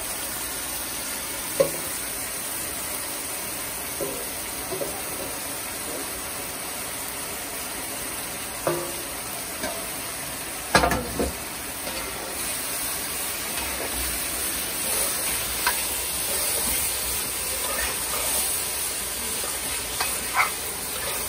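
Goat tripe and liver in curry sizzling steadily in a metal pot while being stirred, the metal spoon scraping and clinking against the pot. The sizzling grows louder about halfway through, and a sharp clank about eleven seconds in is the loudest sound.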